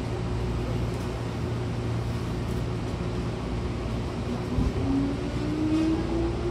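Hankyu electric train pulling away from a station, heard from inside the carriage: a steady low hum, and from about four and a half seconds in the traction motors' whine rising slowly in pitch as the train accelerates.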